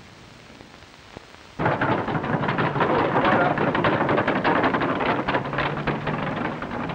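Wooden market barrows rattling over cobblestones: a dense clatter of many rapid knocks from the wheels, starting abruptly about a second and a half in after a quiet stretch.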